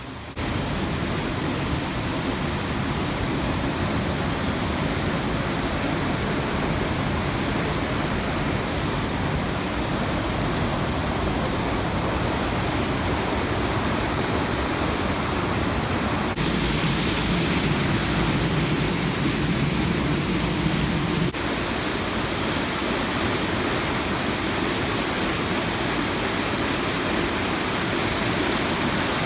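Rushing water, a steady even roar with no rhythm of breaking waves. For about five seconds past the middle it is louder, starting and stopping abruptly.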